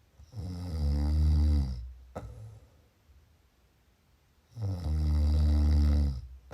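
A person snoring: two long, low snores about four seconds apart, with a short click between them.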